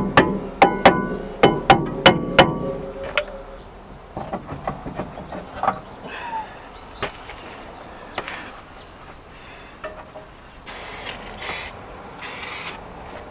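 A hammer strikes the rear brake disc of a Mercedes C220 CDI W203 about eight times in quick succession to free it from the hub, each blow ringing off the metal disc. Lighter clinks and knocks follow as the disc is worked off by hand. Near the end, an aerosol can gives two hissing bursts of spray onto the hub.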